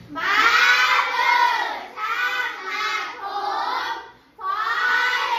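A group of children's voices singing together in unison, in short phrases separated by brief pauses.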